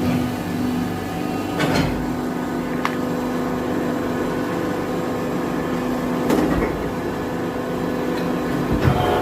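Plastic fan-blade production machinery running with a steady hum, with a few sharp knocks or clanks at intervals. The lower hum stops near the end, with a clank.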